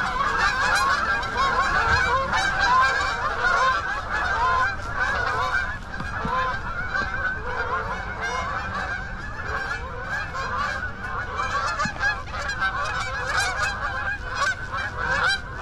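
A large flock of geese in flight, many birds honking at once in a dense, continuous chorus, a little softer in the second half.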